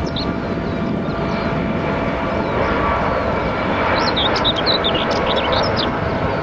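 Twin jet engines of a Boeing 757-200 freighter on landing approach, a steady rushing noise with a faint whine that grows a little louder in the second half. A small bird chirps several times over it in the second half.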